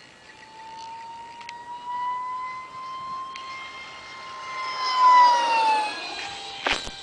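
An RC electric ducted-fan F-16 jet model flies a high-speed pass. Its high fan whine rises slightly as it approaches and is loudest about five seconds in, then drops sharply in pitch as it goes by: a clear Doppler shift. A brief sharp knock comes near the end.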